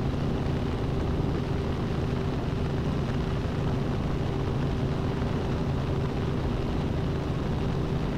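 Robinson R44 helicopter in cruise flight, heard from inside the cabin: the steady drone of its piston engine and rotors, with a steady hum running through it.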